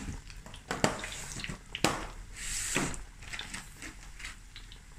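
Oil deep-frying half-moon pastries in a stainless steel pot: steady bubbling and crackling, with a few sharp pops.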